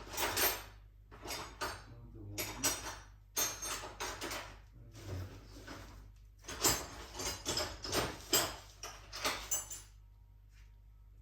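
Loose metal sockets clinking and clattering as a hand rummages through a tool set for the right size, in irregular bursts of clatter that die away about ten seconds in.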